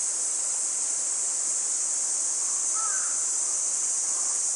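Steady high-pitched insect chorus, with a bird giving a few short calls about three seconds in and again near the end.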